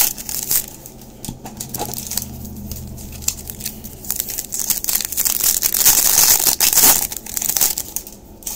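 Trading card packs of 2021 Topps Update being torn open, their wrappers crinkling and tearing in irregular crackling bursts, loudest near the end.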